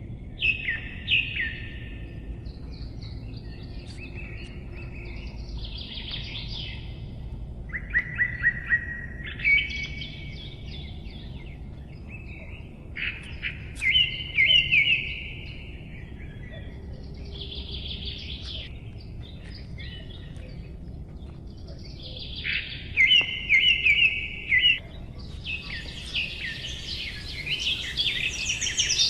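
Songbird singing short, trilled, chirping phrases, repeated every few seconds and coming thicker near the end, over a low steady outdoor background noise.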